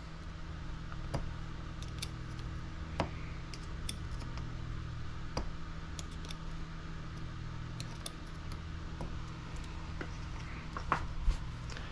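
Scattered light clicks and ticks of a hex driver turning screws into plastic RC buggy suspension arms and chassis as they are given a final tightening, over a steady low hum.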